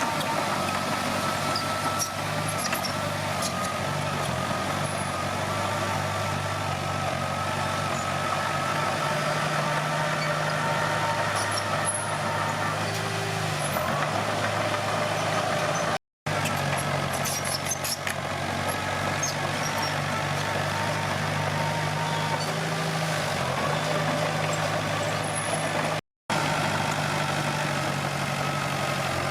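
Komatsu D21P bulldozer's diesel engine running steadily, with scattered small clicks and knocks. The sound drops out for an instant twice, about 16 and 26 seconds in.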